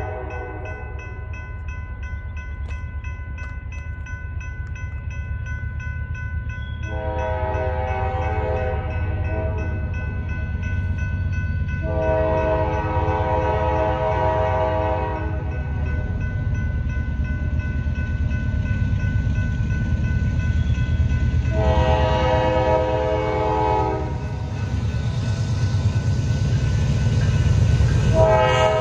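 Approaching freight train's diesel locomotive sounding its multi-chime air horn in long blasts: two long ones, a somewhat shorter one, and another starting just before the end, in the pattern blown for a grade crossing. Under it the low rumble of the locomotives grows louder as they come closer.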